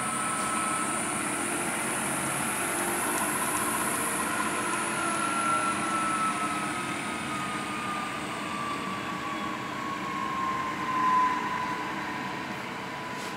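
Vectrax vertical milling machine running, with a steady whine from its spindle drive. The whine's pitch rises slightly, then falls slowly over several seconds and settles lower, as the spindle speed comes down.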